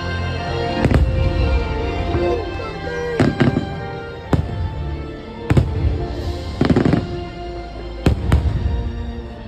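Fireworks bursting: about nine sharp bangs every second or two, several in quick pairs, over loud music.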